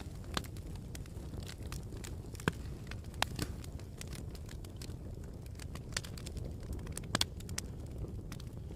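Campfire crackling: irregular sharp pops and snaps over a steady low rumble, with a few louder snaps about two and a half, three and seven seconds in.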